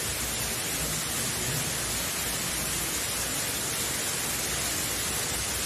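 Steady hiss of heavy rain falling, even and unbroken.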